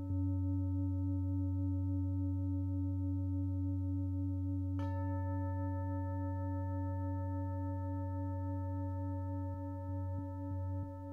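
32 cm five-metal singing bowl ringing with a very deep hum and a stack of steady, slowly wavering overtones. It is struck once about five seconds in, and its higher overtones ring out brightly again.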